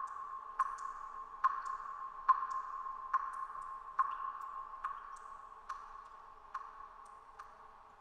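Water droplets falling in a cave, one sharp drip a little more often than once a second at an even pace, with fainter, higher drips in between. A steady ringing hum lies underneath and slowly fades away.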